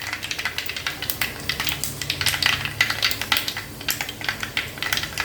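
Mustard, cumin and fenugreek seeds spluttering in hot oil, a rapid, irregular crackle of small pops: the tempering seeds bursting as the oil is hot enough.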